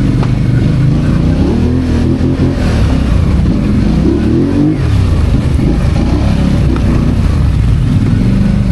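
ATV engine running under load along a trail, its pitch rising and falling again and again as the throttle is worked.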